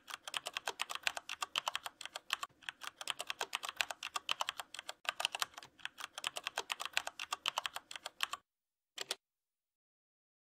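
Rapid typing on a computer keyboard, a quick run of key clicks that stops about eight seconds in, followed by one more click about a second later.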